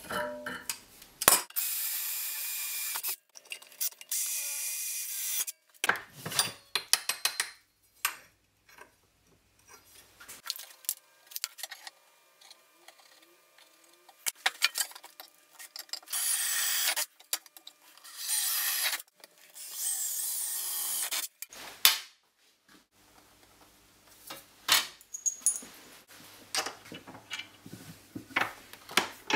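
Metalworking with hand tools at a bench vise: scrap metal parts clink and knock against the vise and tools. Three stretches of harsh tool noise each last a couple of seconds, the longest about six seconds near the middle.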